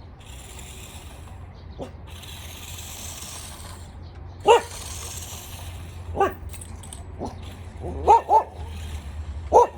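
A dog barking in short, sharp single barks, about five in the second half, two of them in quick succession near the end. Between them come stretches of a high whirring hiss.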